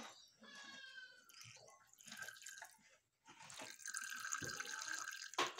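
Thin streams of milk from a cow's teats falling into a hand-held conch shell: a faint liquid trickling and dripping, louder and steadier in the last couple of seconds.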